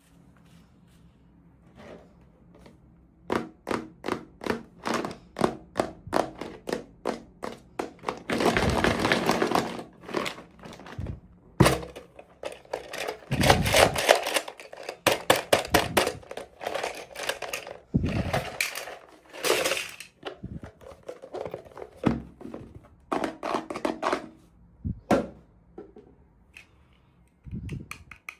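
Toy packaging being opened and handled by hand: a run of sharp plastic clicks and taps, then bursts of crinkling and tearing about 9, 14 and 19 seconds in.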